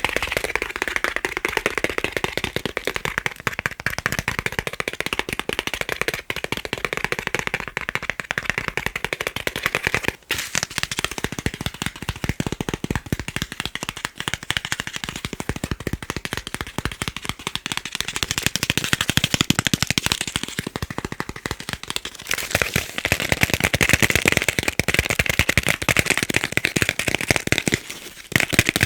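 Fast, continuous tapping on chocolate, a dense stream of small crisp clicks, with brief pauses about ten seconds in and near the end.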